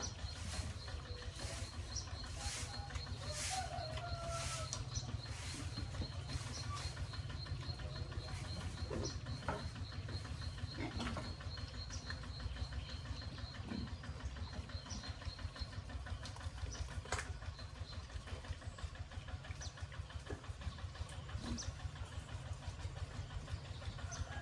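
A small engine running steadily with a low, evenly pulsing rumble. A few bird chirps come over it about three to four seconds in.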